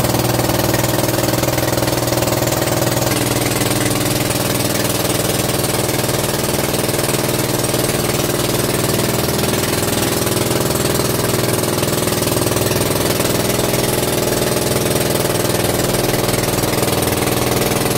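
Motorised outrigger boat's (banca's) engine running steadily under way, its note shifting slightly about three seconds in. An even hiss of water and wind rides over the engine throughout.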